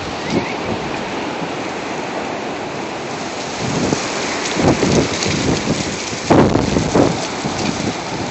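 Strong wind blowing in gusts against a phone microphone: a steady rushing hiss, with heavier buffeting rumbles about halfway through and again near the end.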